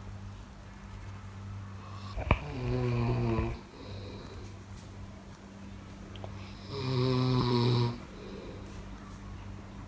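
A person snoring: two rasping snores about four seconds apart, each lasting about a second, over a steady low hum. A sharp click comes just before the first snore.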